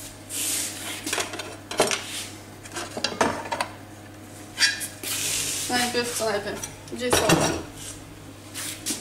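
Kitchen dishes and cutlery clinking and knocking on the worktop: several separate clatters, some with a short ring.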